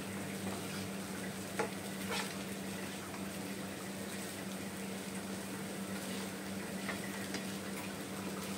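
Plastic spatula stirring poha in a nonstick frying pan on a gas stove, over a steady frying hiss, with a few light clicks of the spatula against the pan.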